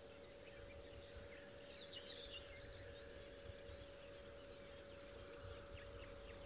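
Near silence: faint outdoor country ambience with a few distant bird chirps, clearest about two seconds in, over a faint steady hum.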